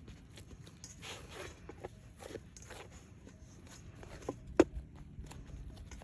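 Hands kneading bread dough in a stainless-steel bowl: soft presses and squishes of the dough with scattered light taps, and one sharper knock a little past the middle.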